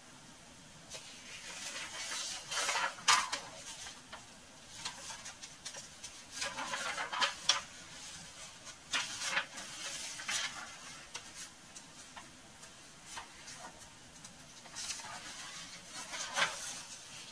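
Intermittent rustling and light clicks from objects being handled, in a few short bursts with quieter gaps between.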